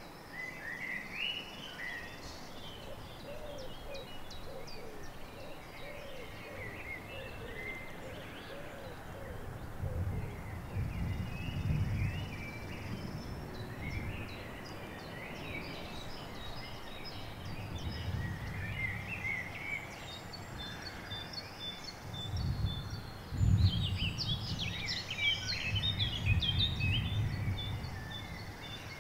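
Several songbirds chirping and singing in spring woodland, with a run of low repeated notes in the first few seconds. A low rumble swells several times in the second half.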